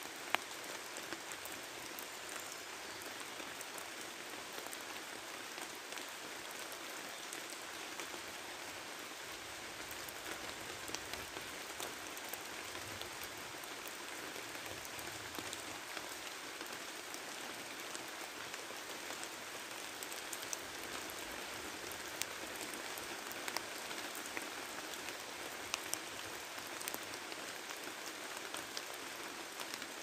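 Steady rain falling in a forest, an even hiss scattered with the sharp ticks of single drops, one louder tick right at the start.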